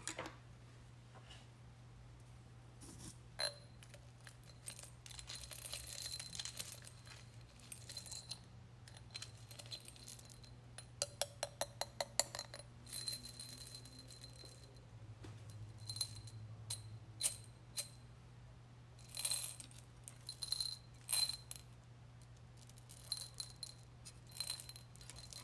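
Small beads clicking and rattling against a glass jar as the jar of red sand and beads is tilted and stirred. The clicks come irregularly, singly and in short clusters, with a quick run of about a dozen clicks near the middle.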